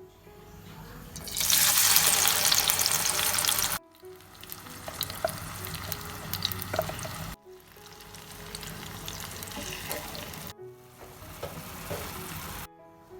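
Food frying in hot oil in a pan: a loud sizzle starting about a second in, then quieter sizzling with light stirring clicks, broken by abrupt edit cuts three times. Soft background music underneath.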